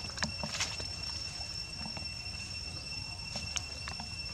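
Steady high insect drone holding two constant pitches, with scattered light clicks and rustles from a baby monkey moving on a person's lap.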